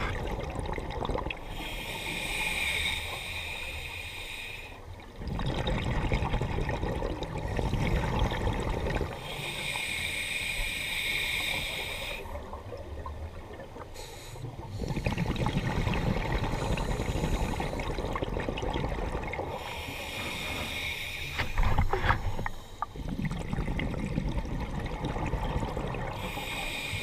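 Scuba diver breathing through a regulator underwater: a hissing inhale through the demand valve, then a louder, lower gush of exhaust bubbles, repeating roughly three times at uneven intervals of several seconds.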